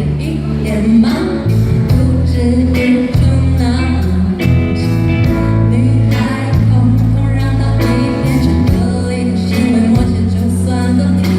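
Mandarin pop song performed live: singing over amplified accompaniment with a bass line and a steady beat.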